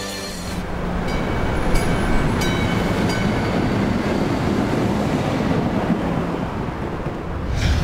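Green-and-white light-rail streetcar passing close by on its tracks: a steady rumble of wheels on rail with a few sharp clicks, and thin high tones from the wheels and rails from about one to three seconds in.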